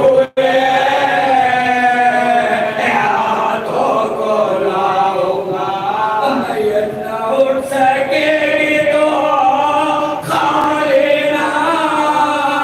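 A small group of men chanting an Urdu marsiya (elegy for the martyrs of Karbala) together into a microphone, unaccompanied, in long held, wavering melodic lines. The sound cuts out for an instant just after the start.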